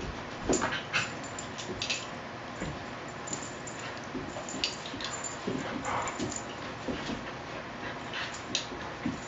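Two dogs play-fighting, with short yips and whimpers and scuffling coming at irregular moments.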